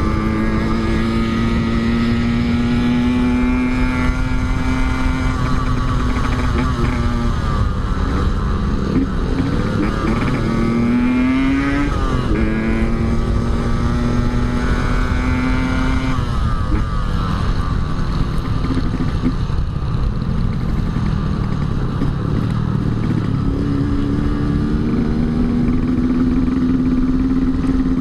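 Yamaha RX-King two-stroke single-cylinder engine under way, mostly holding steady revs. The revs dip and climb about ten seconds in, fall off about sixteen seconds in, and build again near the end.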